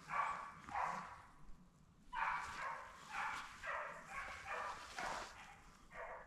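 Beagles baying on a rabbit's scent: a string of short bawls and barks, mostly about half a second apart, with a break of about a second near the start.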